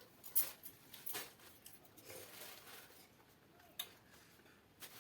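Eating sounds from a meal of pakhala (water-soaked rice) with fried fish: a few sharp smacks and clicks, the loudest a little under half a second in, with softer wet noises between them.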